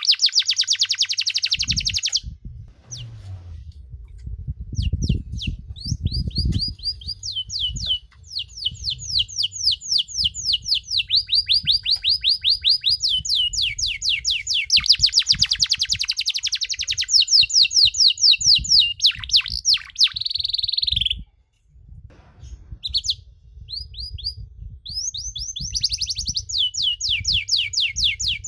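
Domestic canary singing a long song: rolls of rapid, evenly repeated falling notes, about ten a second, strung one after another with only brief breaks, twice near the start and once about three-quarters of the way through. A faint low rumble runs underneath.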